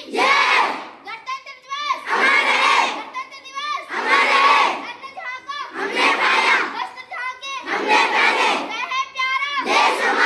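A group of schoolchildren shouting slogans in unison, call-and-response: one voice calls a line and the group shouts the answer back. This happens about five times, roughly every two seconds.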